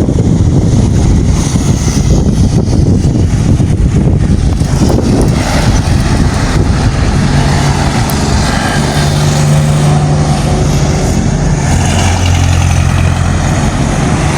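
Motor vehicle engine running, with wind noise on the microphone; a steady low engine hum comes in about halfway through.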